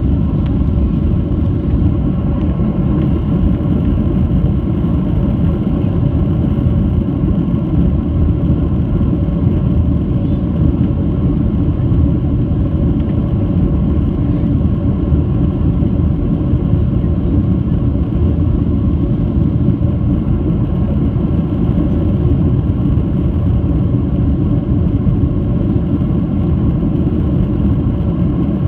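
Steady engine rumble inside the cabin of a Boeing 737-800 with its CFM56-7B turbofans running, a constant low roar with a faint hum over it.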